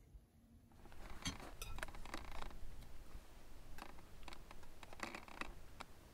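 Faint scattered clicks and light scrapes of eating utensils against bowls, in a few short spells, over a low outdoor rumble.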